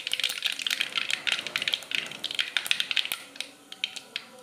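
Mustard seeds spluttering in hot oil in a kadai during tempering, a dense run of rapid crackling pops that thins out after about three seconds.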